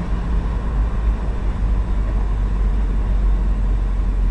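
A vehicle running: a steady low rumble, strongest at the very bottom of the range, with a faint steady tone above it.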